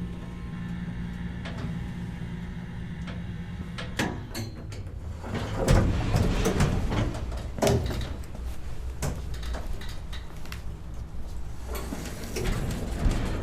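Elevator with a low hum, then from about four seconds in a run of clicks, clunks and rattling as the sliding doors and mechanism move, loudest between about six and eight seconds in.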